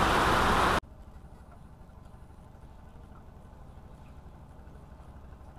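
Heavy rain as a loud, even hiss that cuts off abruptly about a second in, leaving only a faint low rumble.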